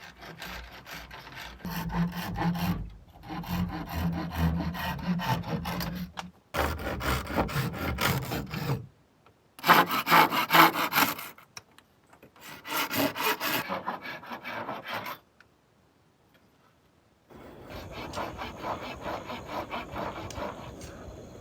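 Hand tools working wood: rapid rasping, rubbing strokes in several separate runs broken by short pauses, the loudest run about halfway through, then a quieter run after a brief silence.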